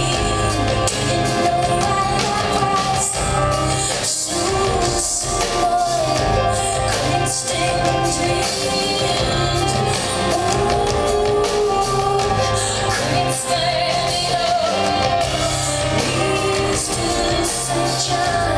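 Live band music with a woman singing over a steady bass line and drums, continuous throughout.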